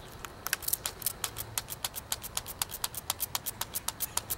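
Trigger spray bottle of sugar water pumped rapidly, giving a quick, even series of short squirts, several a second. It starts about half a second in. The sugar water is clogging the nozzle, so it shoots a stream instead of a fine mist.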